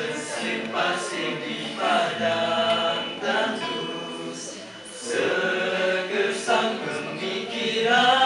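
A small group of male voices singing a nasheed together, in phrases with a brief dip about halfway through.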